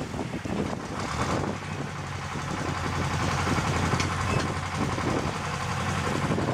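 Tugboat engine running steadily as the tug pushes the barge into position, a low hum that sets in about a second in, over wind and small waves lapping at the shore.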